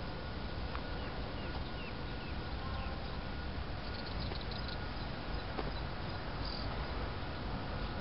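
Open-field ambience of birds and insects: a run of short chirps in the first few seconds and a brief fast trill about halfway through, over a steady low rumble and a faint thin steady tone.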